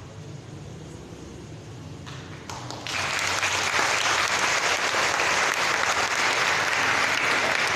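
Audience applause starts abruptly about three seconds in and carries on steadily.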